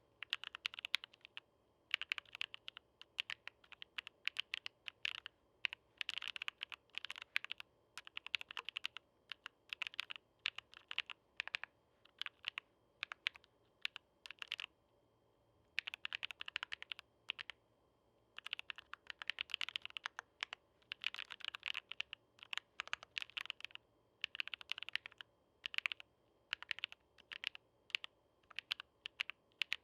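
Typing on a gasket-mounted MAJA V2 mechanical keyboard with lubed Silver Blizzard switches on a polycarbonate plate, with PCB and case foam: runs of quick keystroke clicks broken by short pauses.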